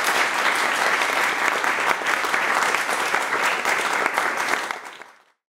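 Audience applauding steadily, then fading out to silence near the end.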